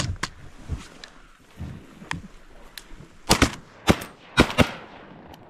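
A quick volley of 12-gauge shotgun shots at a flock of ducks, about six sharp blasts within a second and a half, starting a little over three seconds in.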